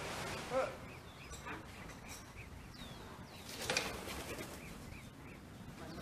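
Birds chirping outdoors: scattered short chirps and a few falling whistled notes, with a quick even series of chirps about four seconds in. A brief louder rush of noise comes about three and a half seconds in.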